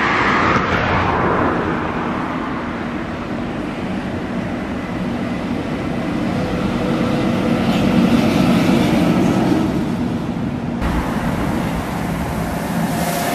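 SNCF BB 7200 electric locomotive running light and passing below, its motor and fan hum and wheel-on-rail noise growing to the loudest about eight seconds in.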